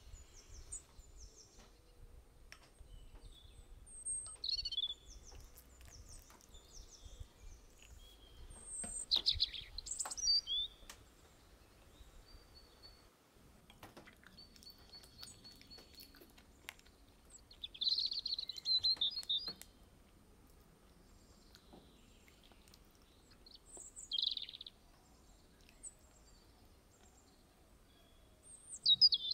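Birds chirping and singing in short bursts every few seconds, over a faint low rumble.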